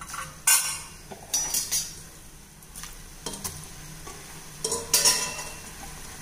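Murukku deep-frying in hot oil in a metal kadai: steady sizzling and bubbling, with several short, louder bursts. A slotted metal ladle clinks and scrapes against the pan.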